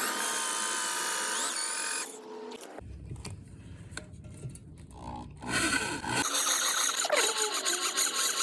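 A handheld power tool running: a steady high motor whine at first, then, after a quieter low stretch, loud repeated rhythmic working strokes, as in drilling or cutting metal.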